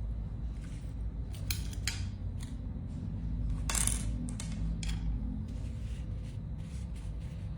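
Scattered light clicks and short scrapes, as of small hard objects being handled, over a steady low rumble.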